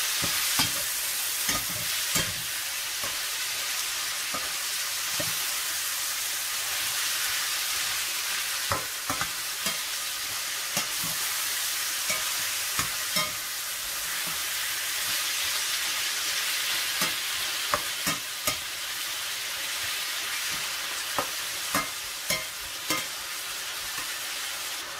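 Diced chicken and onions sizzling in a stainless steel frying pan, with a metal spatula scraping and clicking against the pan now and then as it is stirred.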